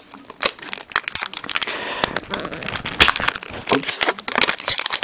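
Clear plastic wrapping around a pack of AA batteries crinkling and tearing as it is pulled open, with many sharp irregular crackles.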